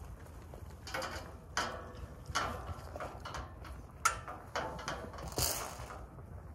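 Galvanised steel sheep hurdles rattling and scraping in a series of short bursts, metal knocking on metal, as the hurdle gate is worked open.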